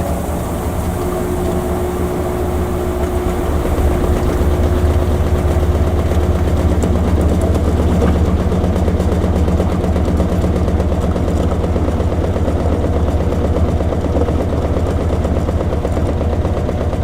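Washing machine running, a steady low mechanical hum with a fast pulsing beneath it that grows louder about four seconds in.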